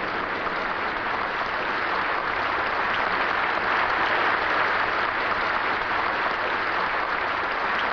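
Large audience applauding steadily: a dense, even clatter of many hands.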